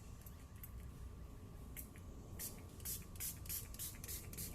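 Spray bottle of headlight-lens surface activator being pumped onto a headlight lens: a quick series of short spritzes, about three or four a second, starting about halfway through, after a few light clicks.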